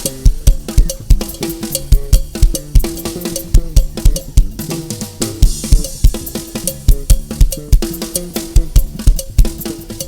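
Music with a fast, steady drum-kit beat: heavy bass drum about three times a second, with snare and cymbals under sustained instrumental notes.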